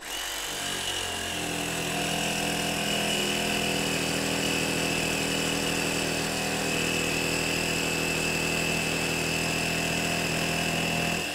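DeWalt 20V MAX cordless jigsaw with a Diablo metal-cutting blade sawing through 1/4-inch steel plate, running steadily with a high, scraping whine after coming up to speed in the first second, and stopping at the end. The plate is thicker than the blade is meant for and it is cut dry, so the blade runs piping hot.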